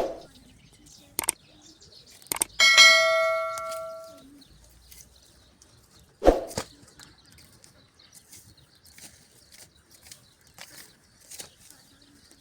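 A few sharp knocks, and one metal clang that rings for about a second and a half with a bright cluster of overtones, followed later by another single knock and faint small clicks.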